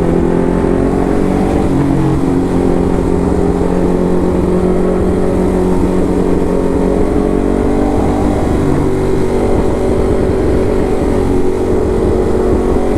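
Ducati Hypermotard's L-twin engine running steadily while riding, with a dip in pitch about two seconds in and another change near nine seconds.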